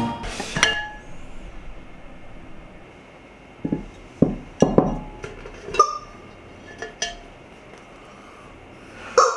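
Ceramic tableware being handled: a series of sharp clinks and knocks from a clay pot's lid, bowls and chopsticks, about eight in all, several with a short ringing tone.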